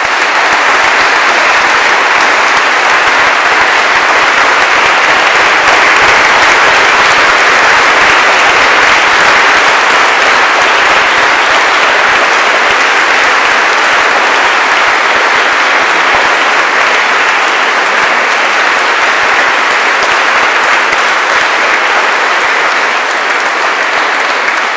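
Loud, steady applause from a large audience, many people clapping together without a break.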